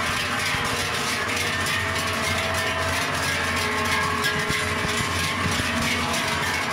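Many large cowbells on a passing herd of cows clanging and ringing together in a dense, continuous jangle.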